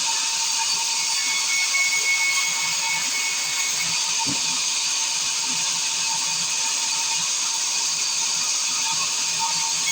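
Circular sawmill blade running with a steady high whine and hiss.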